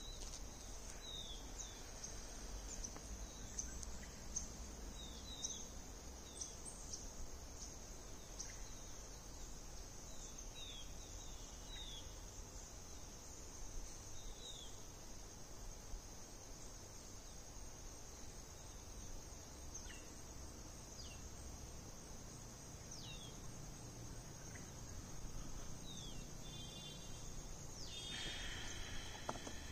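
Outdoor woodland ambience: insects, likely crickets, droning steadily on one high pitch, with short falling bird chirps every second or two and a brief trilled bird call near the end, over a low steady rumble.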